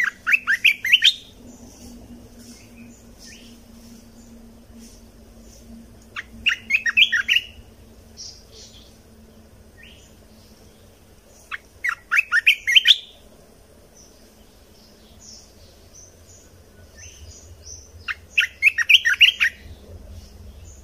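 A bulbul singing short, loud phrases of rapid notes, four times, each about a second long and roughly six seconds apart, with faint high chirps from other birds in between.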